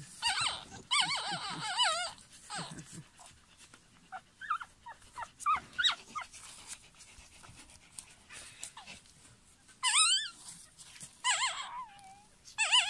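Newborn poodle puppies crying: high-pitched, wavering whimpers and squeals. A long run of cries comes at the start, short squeaks follow in the middle, and louder bursts return about ten seconds in and near the end.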